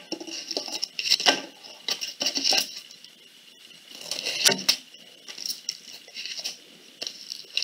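Aluminum foil crinkling and crackling in irregular bursts as it is twisted and wound into a tight spiral around a wooden spoon.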